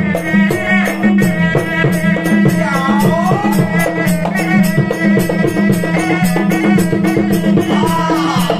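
Serunai, a Malay double-reed shawm, playing a continuous nasal folk melody without a break, over percussion strokes keeping a steady quick beat.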